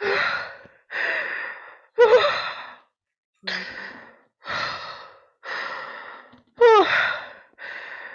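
A woman crying: heavy, sighing breaths and sobs about once a second, a few of them breaking into a short wavering cry.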